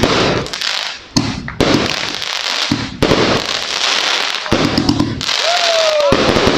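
A 268-shot firework cake firing in rapid succession: repeated launch thumps under dense crackling from the bursting stars. A brief falling whistle sounds near the end.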